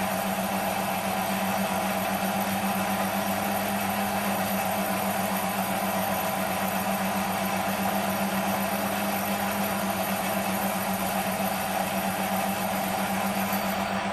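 Small bench metal lathe running at a steady speed: an even motor and gear hum with two constant tones that does not change.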